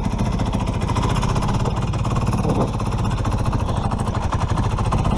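Vintage two-stroke snowmobile engine running steadily, with a rapid, even train of exhaust pulses.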